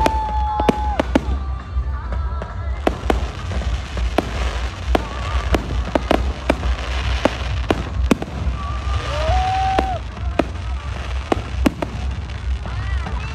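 Aerial fireworks display: a steady run of sharp, irregular bangs and crackles from bursting shells, over a deep continuous rumble.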